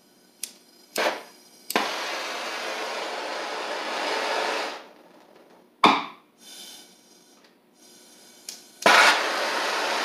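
Acetylene torch running off a B tank: a few sharp clicks, then a steady hiss for about three seconds that stops, a sharp pop about six seconds in, and the steady hiss starting again near the end.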